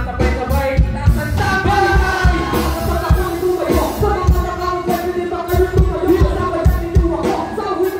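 Live band playing through a PA: drums keeping a steady beat under electric bass and a sung vocal melody.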